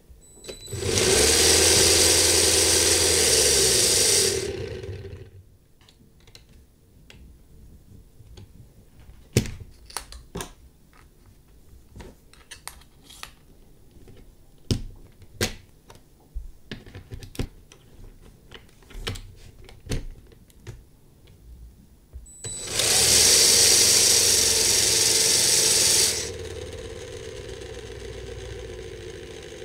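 Small Lego electric motor spinning a wheel on an axle held in 3D-printed Lego bearing parts: it runs at speed for about three and a half seconds and winds down. Then a long stretch of sharp plastic clicks and snaps as the parts are taken apart and refitted with a ball bearing. Then the motor runs again for about three and a half seconds and drops to a quieter steady whir for the rest.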